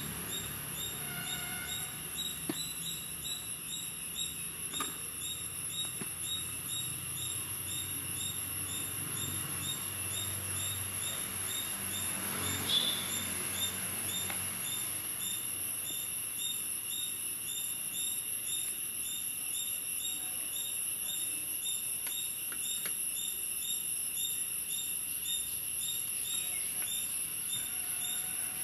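Insects chirping in a steady, evenly pulsing high drone, with a few faint knocks and one brief louder clatter about halfway through.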